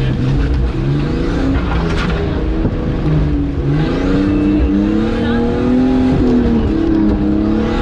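Nissan Patrol off-roader fitted with a Nissan Skyline engine, heard from inside the cab, driving a rough track with the revs rising and falling, then climbing steadily near the end.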